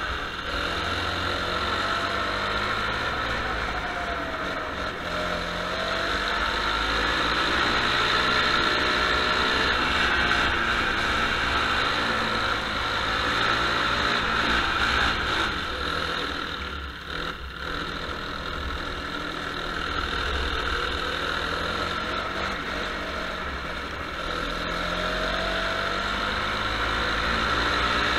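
Go-kart engine heard from the kart's onboard camera, its revs rising and falling again and again with the throttle, under a steady hiss. It drops off briefly about two-thirds of the way through, then picks up again.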